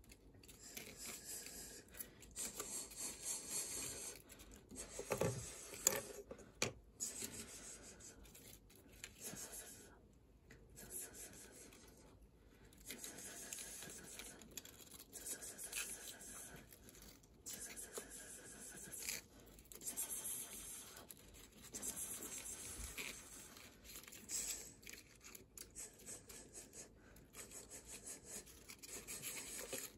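Cardboard-and-paper model car wash being worked by hand: the gantry and paper brushes rub and scrape over a toy car in an uneven, scratchy rustling, with a few sharp clicks about six seconds in.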